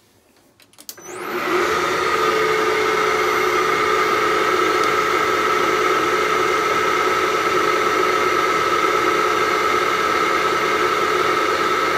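Hafco AL960B metal lathe, driven by a three-phase motor on a VFD, starting up about a second in and coming up to speed within half a second, then running steadily with a steady whine over the machine noise. The spindle turns at 160 RPM at the calculated high-speed frequency.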